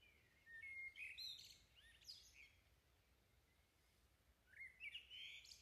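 Faint bird chirps, short high twittering calls in two clusters: one about half a second in, another near the end.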